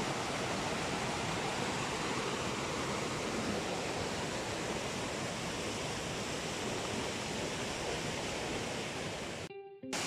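Steady rush of a stream tumbling over rocks in small cascades, an even hiss of water. It cuts out for a moment just before the end.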